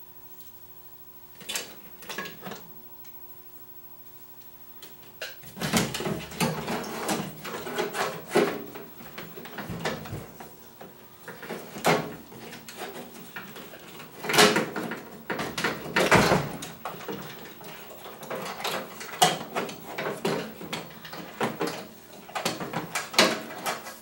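Microwave oven's plastic door-interlock switch block being fitted back into its sheet-metal cabinet: two isolated clicks, then from about five seconds in a run of irregular clicks and knocks of plastic and metal parts being handled.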